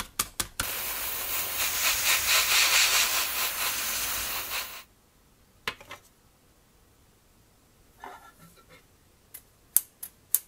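A spray nozzle hissing steadily for about four seconds, just after a few sharp clicks. Scattered light clicks and handling sounds follow near the end.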